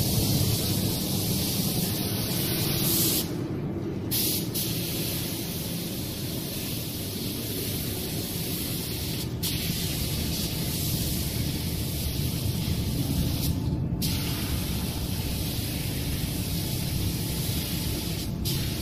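Paint spray gun hissing steadily as a steel crane girder is sprayed, cutting out briefly four times, over a low steady rumble.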